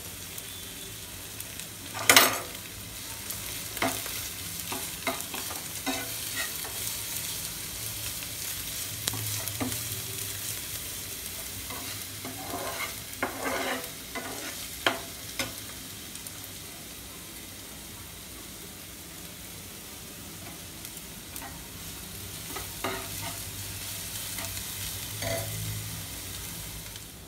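Chopped onion, ginger, garlic and green chilli sizzling in hot oil in a non-stick frying pan, stirred with a slotted steel spatula that scrapes and knocks against the pan. The sharpest knock comes about two seconds in, with a run of knocks around the middle.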